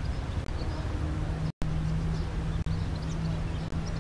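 Steady low drone of a passenger ship's engine under way, with wind rumble on the microphone. It breaks off for an instant about one and a half seconds in. Faint high bird chirps are heard above it.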